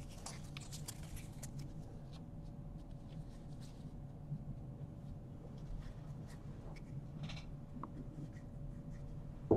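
Faint rustling and light ticks of basketball trading cards being slid and flipped through by hand, over a faint steady hum.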